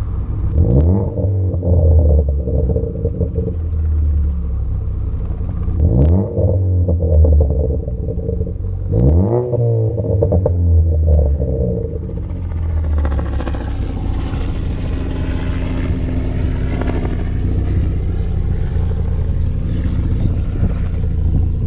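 Ford Focus ST's turbocharged engine blipped three times, each short rev followed by pops and crackles from the exhaust as the revs fall, the sign of a pops-and-crackles tune. In the last third the revs stop and a steadier, hissier running sound takes over.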